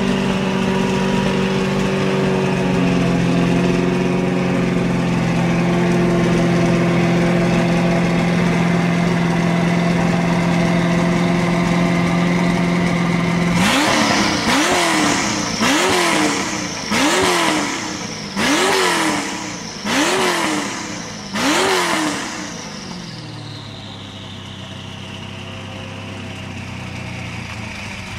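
Mazzanti Evantra Millecavalli prototype's 7.2-litre twin-turbo V8 running at a steady fast idle, then revved in seven quick blips about a second and a quarter apart, a high whistle falling away after each. It then drops to a lower, quieter idle while the whistle slowly winds down.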